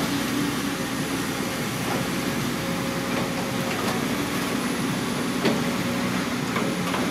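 Caterpillar long-reach excavator's diesel engine running steadily under load as the boom lowers the bucket into the water, with a few sharp knocks, the loudest about five seconds in.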